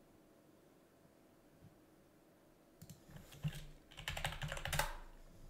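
Computer keyboard typing: a quick run of keystrokes starts about three seconds in and lasts about two seconds, after a quiet stretch. The typing is a search query.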